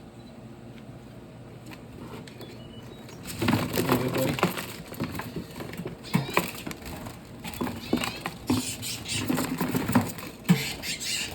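Handling noise as small caged red siskins are caught and moved into a box: rustling with a run of irregular knocks and clicks that begins about three seconds in, after a fairly quiet start.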